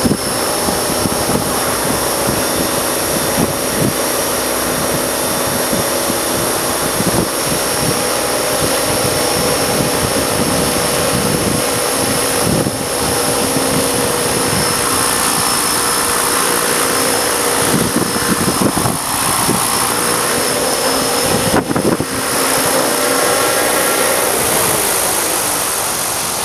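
Electric RC helicopter (Ikarus Eco 8) flying: a steady motor and gear whine with rotor noise. Strong gusty wind buffets the microphone with irregular rumbles.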